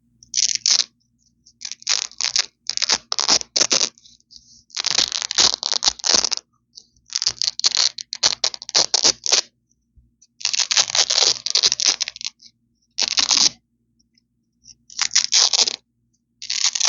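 Velcro (hook-and-loop fastener) ripped apart close to the microphone again and again: about nine crackly tearing rips, some short and some drawn out to a couple of seconds, with brief pauses between them.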